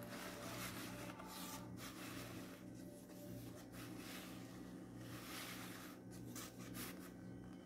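Plastic stencil wheel being turned inside its cardboard packaging: faint, uneven rubbing and scraping that comes and goes, over a low steady hum.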